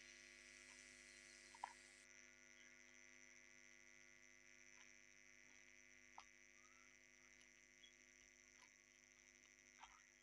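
Near silence: a faint steady hum with a few faint, scattered clicks.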